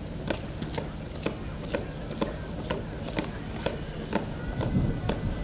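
A parade marching in step: sharp, even strikes about twice a second over a low background hum.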